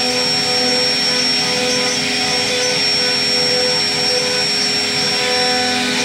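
CNC router spindle running at speed while its bit cuts grooves in a wooden door panel: a steady high whine over a rough cutting noise.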